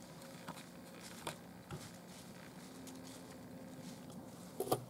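Faint crackling and rustling in dry leaf litter: a few scattered soft clicks, then a louder short cluster of crackles near the end.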